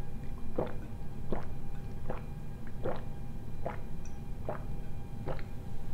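A man gulping a drink straight from a glass bottle: seven wet swallows, evenly spaced about three quarters of a second apart.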